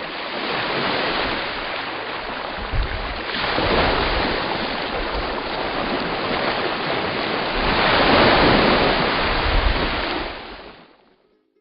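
A rushing noise with no pitch to it, swelling twice and then fading out shortly before the end.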